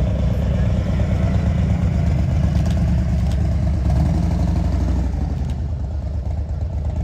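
A vehicle engine running close by with a deep, steady rumble, easing off a little in the second half.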